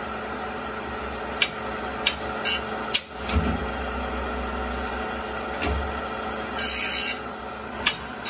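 Automatic saw-sharpening top grinder running, its spinning grinding wheel truing the newly replaced carbide tips of a saw blade round, catching the high tips and missing the low ones. Sharp clicks from the machine's indexing come several times, with a short hiss about six and a half seconds in.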